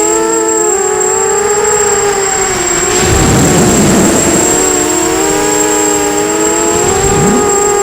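Electric motors and propellers of a 250-size FPV quadcopter whining at several slightly different pitches that drift up and down together with the throttle. About three seconds in, a rush of wind noise swells for a second or so, and a steady high thin whine sits underneath throughout.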